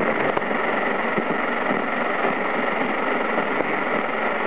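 Jamming interference on UHF TV channel 39, heard through the TV's sound: a steady, rough noise drone that sounds like a tractor, with one sharp click just after it begins.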